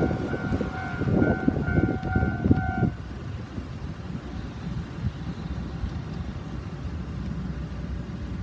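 Japanese level-crossing warning bell ringing in an even, repeating two-tone pattern over the rumble and wheel clatter of a passing Gakunan Railway train. Bell and train sound stop together about three seconds in, leaving a low, steady background noise.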